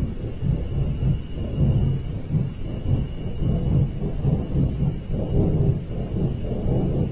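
A loud, low, uneven rumbling roar of unknown origin, which the person recording likens to a giant flame, swelling and dipping without a break. A faint steady high tone runs beneath it.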